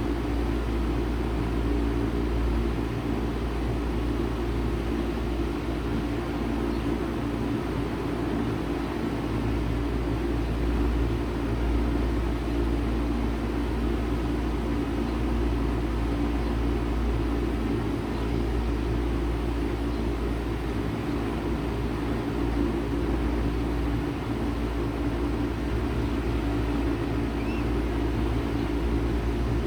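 1995 Bard 3.5-ton wall-hung heat pump running steadily in cooling mode: a constant compressor hum with several steady tones, under the rush of its fan.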